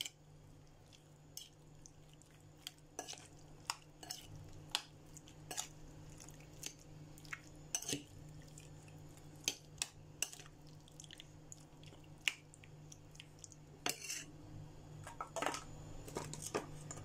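Metal spoon clinking and scraping against a ceramic plate while mixing raw chicken pieces with seasoning, in irregular sharp clicks, more frequent near the end, over a low steady hum.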